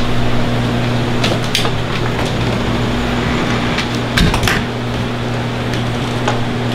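Steady low hum and hiss of room noise, with a few light clicks and a door shutting with a knock about four seconds in.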